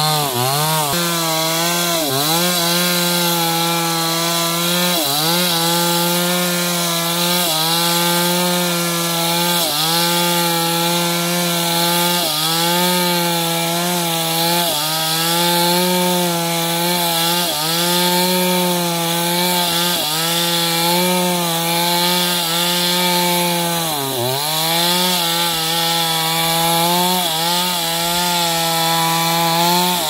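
Chainsaw running at high revs while cutting through timber for lumber. The engine pitch sags briefly and recovers every two to three seconds as the chain bites and clears.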